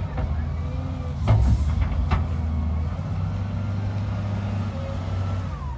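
LiuGong wheel loader's diesel engine running steadily at low revs as the machine creeps down a slippery, muddy slope. Two sharp knocks come about a second and two seconds in.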